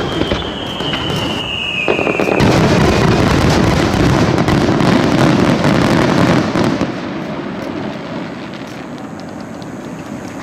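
Aerial fireworks going off: a whistle falling slowly in pitch over the first two seconds, then a loud, dense rumble of bursts and crackle for about four seconds that thins to scattered crackling near the end.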